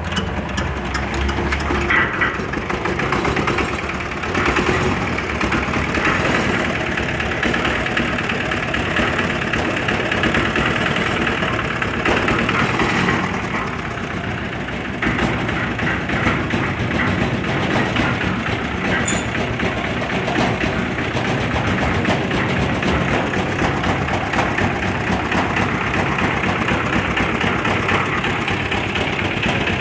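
An engine running steadily, with a brief drop in level about halfway through.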